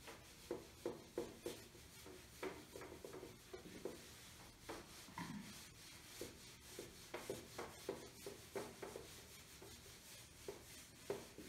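Whiteboard eraser rubbing across a whiteboard in many short, repeated strokes, faint.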